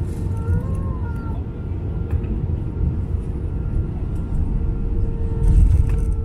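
Vehicle cabin noise: a steady low rumble with a constant hum, swelling briefly near the end. A few faint, short squeaks that glide up and down sound in the first second or so.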